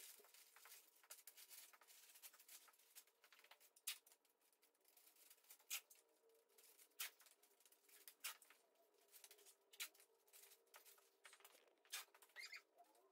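Near silence, with faint scattered crackles and ticks of a plastic tarp being folded and duct tape being pulled and pressed down, over a faint steady hum.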